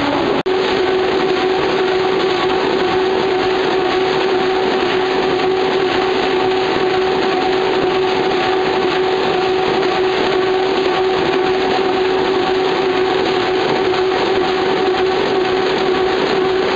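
Corrugated board production line running: a steady machine din with a constant hum, from the slitter-scorer and sheet conveyor carrying cut board sheets. The sound breaks off for an instant about half a second in.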